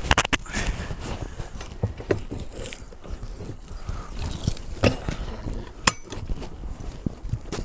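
Handling noise of a car wheel and tyre on a Sealey TC960 manual tyre changer: a few sharp clunks of rubber and steel against the changer's steel frame and bead-breaker lever, loudest at the start and twice more about five and six seconds in, with scraping between.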